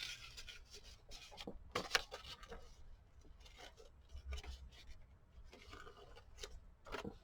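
Faint rustling and scattered light taps and scrapes of paper being handled at a craft table.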